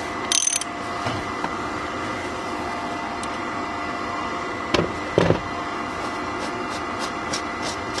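A ratchet wrench clicking briefly near the start, loosening the oil filter cap on a Ford 6.0 Powerstroke diesel. Then a steady background hum, with a sharp click and a knock about five seconds in.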